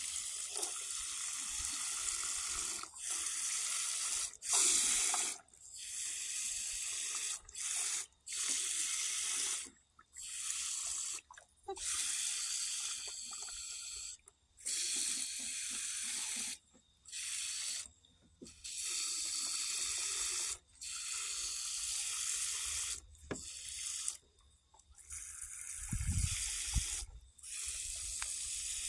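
Water spraying from a garden hose's pistol-grip nozzle into glass pint jars packed with cut sweet corn, filling them. The spray hisses in runs of one to three seconds, cutting off and starting again about a dozen times as she moves from jar to jar.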